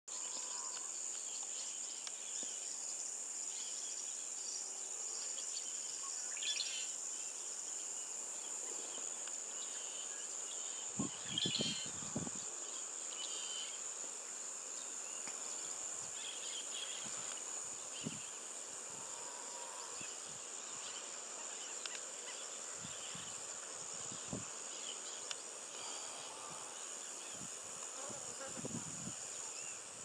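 Steady high-pitched drone of insects, with a few short chirps here and there and a few low thumps, the loudest about a third of the way in.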